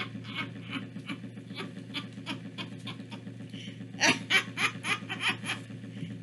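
A woman laughing in short, breathy pulses, softly at first and breaking into louder laughter about four seconds in.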